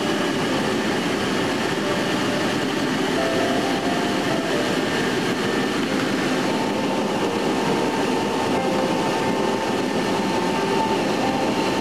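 Steady drone of the C-141B's four Pratt & Whitney TF33 turbofan engines and rushing airflow heard inside the aircraft in cruise flight, with faint steady tones over a constant wash of noise.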